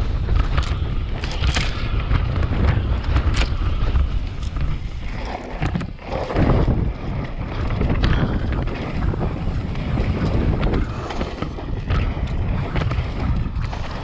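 Wind buffeting the microphone of a camera on a mountain bike descending a dirt singletrack, over a constant rumble of knobby tyres on dirt. Sharp clicks and rattles from the bike come and go.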